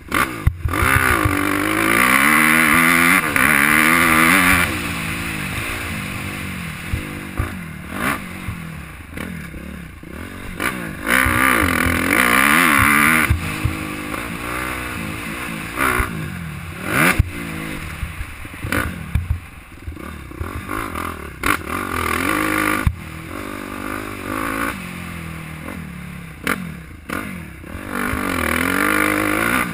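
Suzuki motocross bike's engine revving hard and dropping off again and again as the rider accelerates and shuts off around a dirt track, with the loudest full-throttle pulls about a second in, around eleven seconds in and near the end. Heard from a helmet-mounted camera, with wind noise and scattered knocks from bumps.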